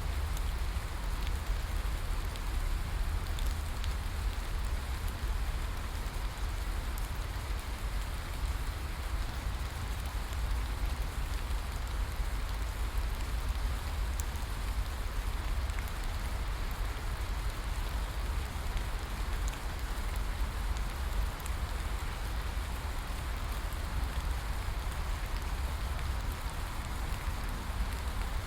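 Steady rain falling: an even hiss with a deep low rumble underneath and scattered faint drop ticks, unchanging throughout.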